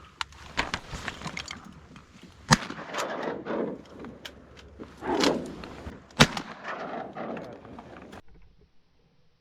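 Two shotgun shots fired at a duck, about four seconds apart, each followed by a second or so of softer trailing sound. The sound drops away near the end.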